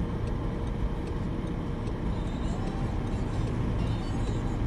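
Steady low rumble of a car's engine and tyres on a snowy road, heard from inside the cabin.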